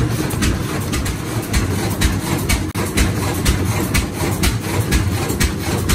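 10 hp International Harvester Type M single-cylinder engine running under load with a regular beat of roughly three to four knocks a second. It is driving a 30-inch Meadows grist mill grinding white corn, and the mill adds a steady grinding rumble.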